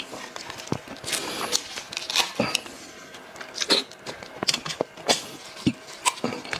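Close-miked eating sounds: chewing with wet smacks and irregular small clicks as meat and skin are torn off a braised sheep head with gloved hands.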